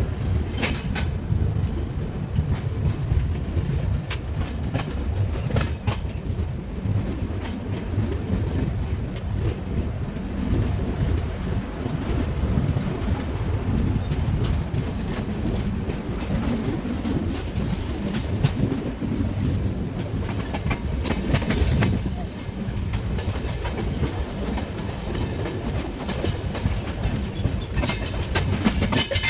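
Passenger train running on the rails, heard from inside a coach: a steady low rumble of wheels and carriage, with the clickety-clack of wheels crossing rail joints. A quick run of sharper clacks comes near the end.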